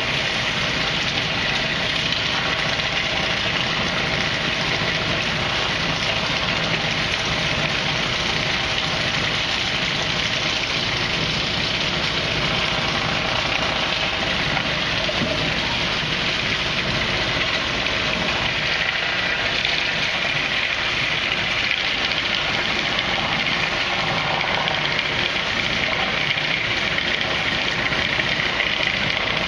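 Wood-Mizer LT50 band sawmill and edging equipment running with a steady, unbroken mechanical din.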